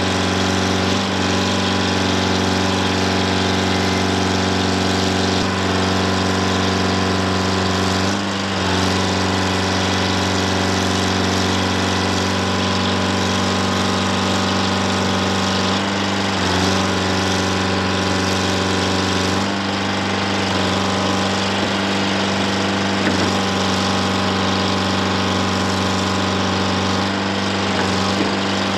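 Detroit Diesel 4-71 two-stroke diesel engine of a Dynahoe 200-4 backhoe-loader running steadily while the backhoe digs, its drone dipping briefly a few times.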